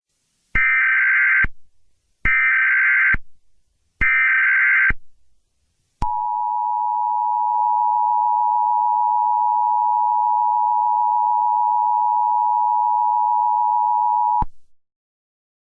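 Emergency Alert System tones: three short bursts of the screeching digital SAME header, each just under a second long, then the two-tone EAS attention signal held for about eight seconds and cutting off suddenly. This is the opening of an Emergency Action Notification alert.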